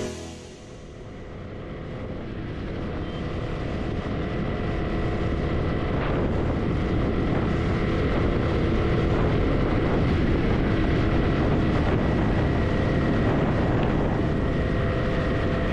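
Honda CB300's single-cylinder engine running under way, with rough trail and wind noise. It grows louder over the first few seconds, then holds steady.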